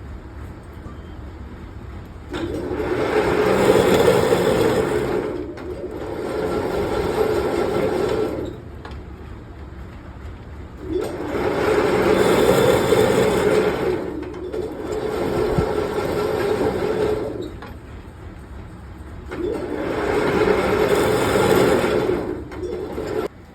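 A machine running in three working cycles of about six seconds each, each loudest at its start and then easing, with quieter spells of steady running between them.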